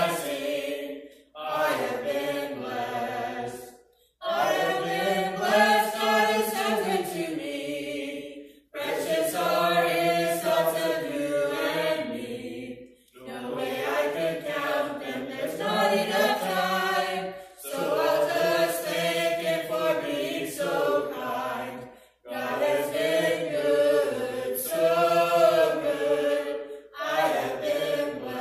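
A small group of men's and women's voices singing a hymn together in harmony, unaccompanied, in long phrases with brief pauses for breath between them.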